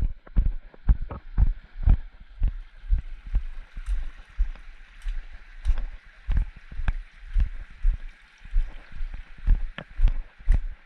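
A hiker's footsteps at a steady walking pace, about two steps a second, each a low thump. A steady faint hiss runs underneath.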